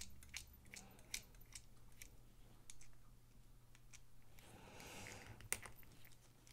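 Faint small metallic clicks of a screwdriver bit turning and seating in the tiny screws of a folding knife's handle scale, with one sharper click about five and a half seconds in.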